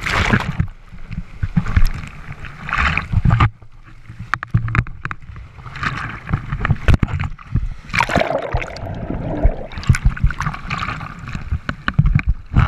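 Broken surf and seawater splashing and sloshing right at a GoPro on a bodyboard, with crackling spray and a heavy low rumble of water against the camera. It comes in surges: a big wash at the start, quieter for a while around the middle, then more splashing as the rider paddles.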